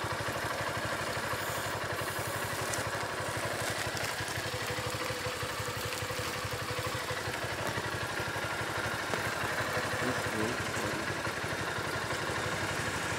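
An engine idling steadily, with an even low pulsing throughout.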